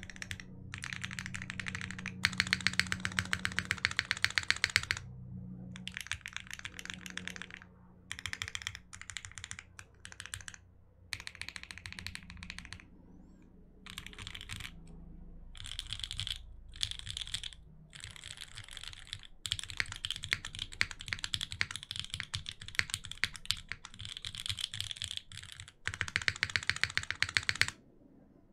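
Mechanical keyboard typing: a Singa Unikorn with an aluminium plate on a gummy O-ring mount, hand-lubed Banana Split linear switches and GMK keycaps, typed in fast runs of keystrokes broken by short pauses. The typing stops just before the end.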